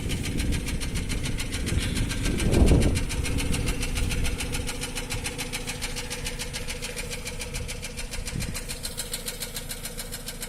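Nissan Almera N16's petrol engine idling with a fast, even ticking of the valves: valve tap. A brief low rumble about two and a half seconds in.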